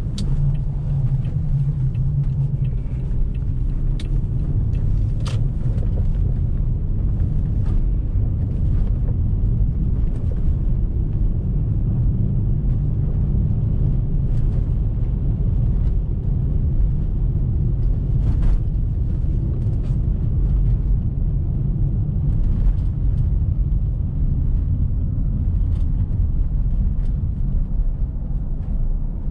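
Steady low rumble of a car driving slowly over snow-covered roads, heard from inside, with a few faint clicks.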